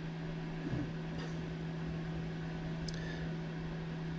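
Quiet room tone: a steady low hum with faint hiss, and a faint tick about three seconds in.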